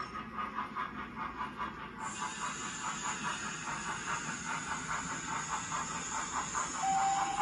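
Sound-fitted OO gauge model steam locomotive chuffing at a steady beat of about three to four chuffs a second, with steam hiss. A steady whistle sounds near the end.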